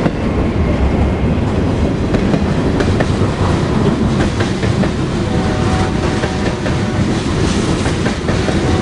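Freight train's enclosed autorack cars rolling past close by: a steady rumble of steel wheels on rail with clickety-clack as the wheels cross rail joints.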